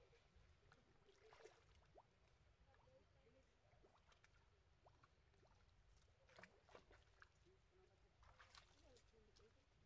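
Faint splashing and sloshing of water from monkeys swimming in a stream, with a few slightly louder splashes past the middle and near the end.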